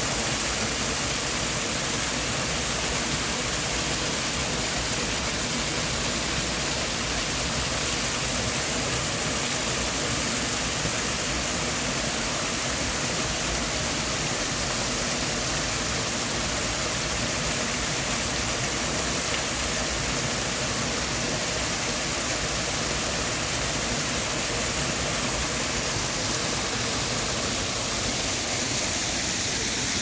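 Small waterfall pouring steadily in several streams over a rock ledge and splashing into a shallow pool, an even rushing of water.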